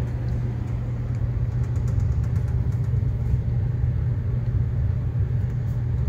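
Gas furnace running: a steady low hum and rumble from the blower. The blower wheel is shaking, and its vibration is carried into the sheet-metal ductwork.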